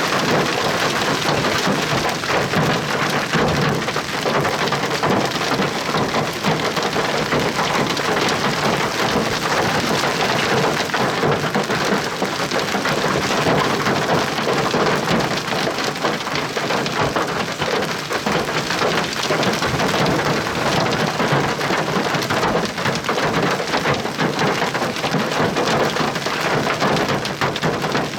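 Heavy rain pelting a vehicle: a dense, steady drumming made of many individual hits, with no let-up.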